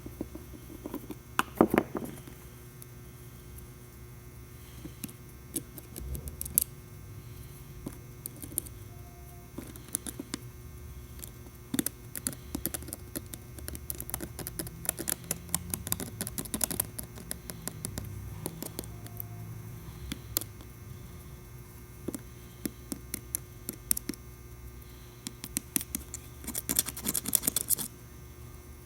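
Small irregular clicks and taps of tools on a Samsung Galaxy S7's parts during disassembly for motherboard removal, over a low steady hum, with a quick run of clicks near the end.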